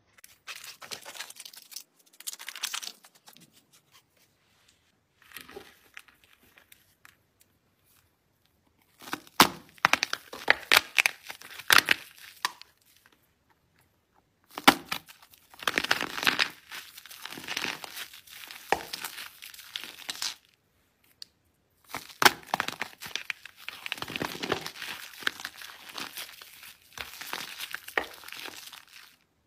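Soap being squeezed, crushed and squished by hand, bar soap and then soap lather, making crisp crackling and crunching. It comes in bursts of a few seconds with short pauses between.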